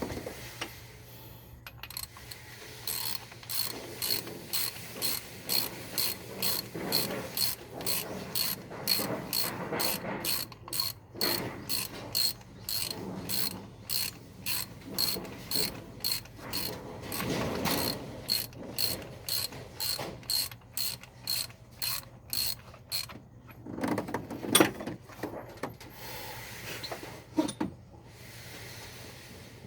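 A socket ratchet wrench clicking in a steady rhythm, about two clicks a second, as a bolt is worked on the engine. It stops after about twenty seconds, followed by a few knocks of metal tools.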